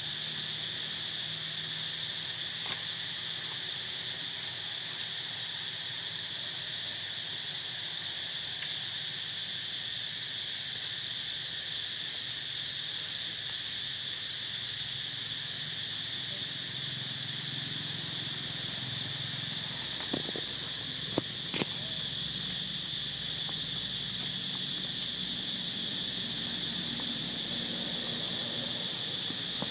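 Steady, high-pitched drone of an insect chorus. A few sharp clicks or knocks sound about two-thirds of the way through.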